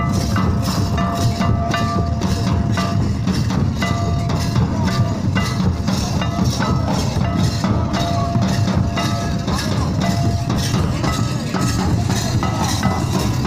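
Santali folk drums beating a fast, steady dance rhythm, with short held notes of a melody on two or three pitches over them.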